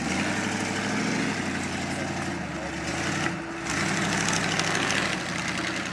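Mud-bogging truck engines running at a steady pitch. The sound drops out briefly about halfway through, then an engine runs steadily again.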